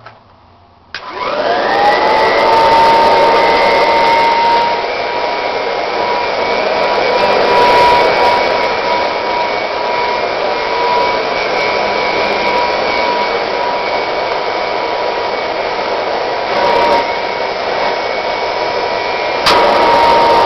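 A 1951 Kirby Model 512 upright vacuum cleaner is switched on about a second in, and its motor spins up into a steady, high whine. It keeps running while it is pushed over carpet, with a sharp click near the end.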